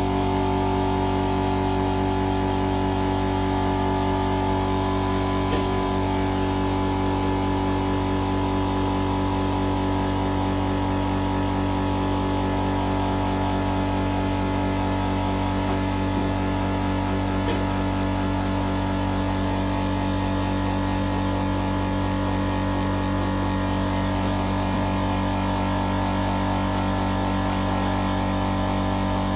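A steady electrical hum with several fixed tones and a faint hiss, unchanging in pitch and level.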